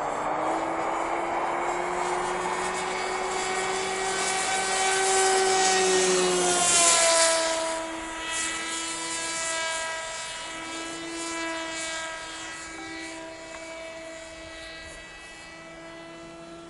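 Sky Hunter RC plane's electric motor and pusher propeller flying past: a pitched hum that grows louder, peaks about seven seconds in with a drop in pitch as it goes by, then fades away.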